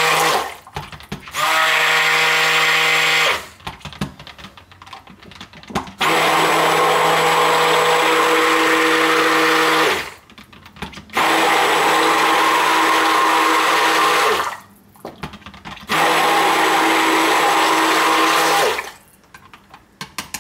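Handheld stick blender running in pulses in thick cold process soap batter, a steady motor whine switched on and off about five times, each run lasting two to four seconds, with light knocks in the pauses. It is blending titanium dioxide into the batter as the soap thickens.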